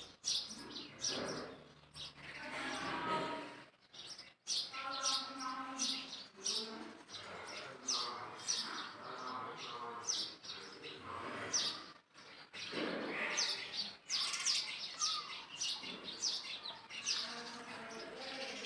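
Birds chirping over and over in quick short notes, with lower pitched calls underneath that rise and fall.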